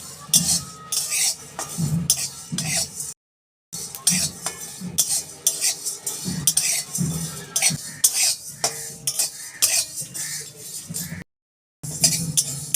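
Spatula stirring and scraping whole spices (cumin, coriander, black pepper and fennel seeds) as they dry-roast in a pan without oil. It goes in repeated short strokes, about two a second, broken twice by a brief dead silence.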